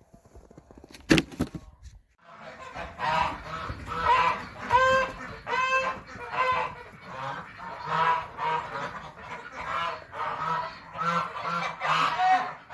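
A single sharp knock about a second in, then domestic geese honking over and over, several calling at once.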